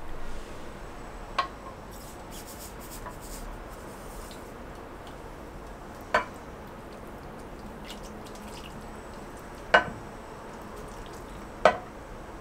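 Seasoning liquid trickling and splashing from a pot onto perilla leaves in a glass dish, with four sharp clinks of the pot or utensil against the dish, the last two the loudest.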